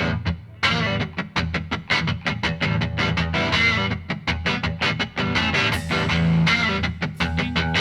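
Background music: a guitar-led track with a quick, even beat of plucked notes.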